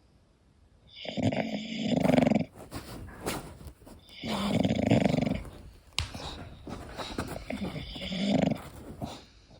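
English bulldog snoring in its sleep: three snores, roughly three to four seconds apart, with quieter rattly breathing between them.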